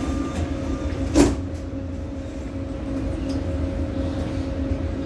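Metro train's sliding doors shutting with a single thud about a second in, over the steady low rumble and hum of the train standing at the platform.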